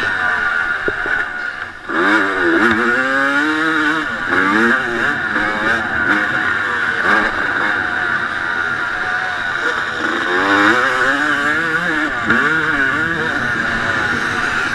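1989 Honda CR250 single-cylinder two-stroke motocross engine at race speed, its pitch repeatedly climbing and falling with throttle and gear changes. The engine note drops briefly about two seconds in, then climbs hard again.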